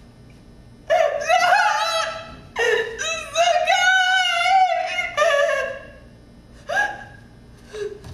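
A woman's voice letting out high, wavering wordless cries: several long ones over the first six seconds, then two short ones near the end.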